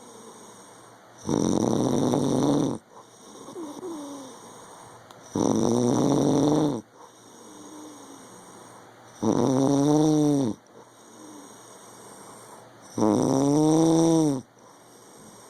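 A man snoring in his sleep: four loud snores about four seconds apart, each lasting about a second and a half, with quieter breaths between. The later snores rise and then fall in pitch.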